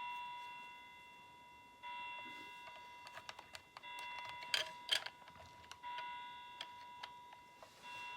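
A bell-like chime of several pitches sounding about every two seconds, each stroke fading away, with scattered small plastic clicks of Lego pieces being handled.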